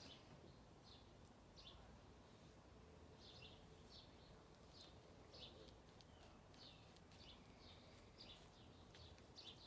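Near silence, with faint short high chirps from a small bird, about two a second.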